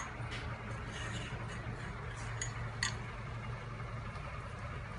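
Light clicks and taps of a plastic collar and a chrome pole being handled and fitted together, a few small knocks in the first three seconds, over a steady low hum.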